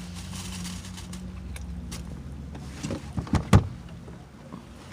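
Close-up eating sounds of chewing and mouth smacking on a cold cut sub, over a low steady hum; a few sharper smacks come close together about three seconds in, the loudest about half a second later.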